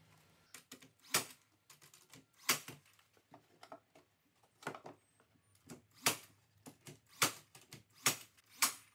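Porter Cable 18-gauge brad nailer firing brads into plywood gussets: about seven sharp shots, roughly a second apart, with small knocks and clicks of the wood being handled between them.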